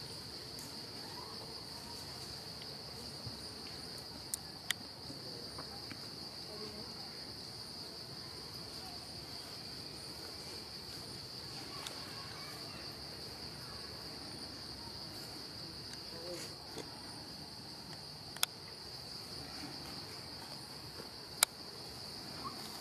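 A steady, high-pitched insect chorus drones without a break. A few short, sharp clicks cut through it, the loudest about 18 and 21 seconds in.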